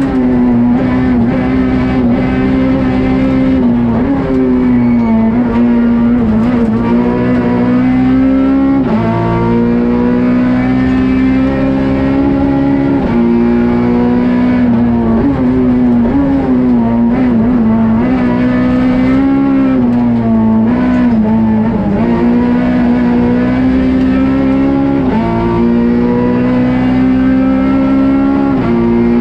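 Peugeot 208 R2 rally car's naturally aspirated 1.6-litre four-cylinder engine running hard at high revs, heard from inside the cabin. Its note holds steady for a few seconds at a time, then dips and climbs back again, several times over.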